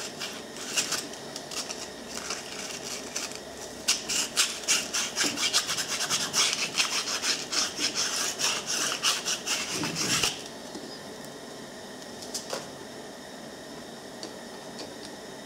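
Scrap of 220-grit sandpaper rubbed back and forth around the armature shaft of a DC plow motor, cleaning off burrs and grime so a new bearing can be pressed on. The strokes are quick and rhythmic and stop about ten seconds in, after which there are only a couple of faint clicks.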